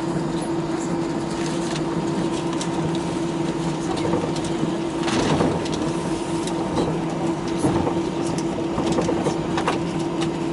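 Steady cabin drone of an Airbus A319-111 taxiing, its CFM56 engines at idle, with a constant low hum and scattered light clicks and rattles from the cabin.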